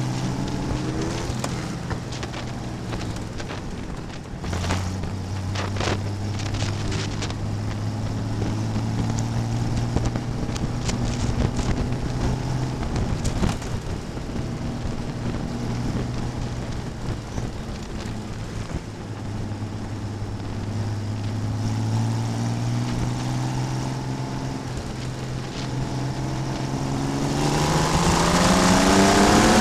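Vintage race car engine at racing speed, heard on board over road and wind noise; the engine note holds steady for stretches, shifting pitch between them, then rises sharply as the car accelerates near the end.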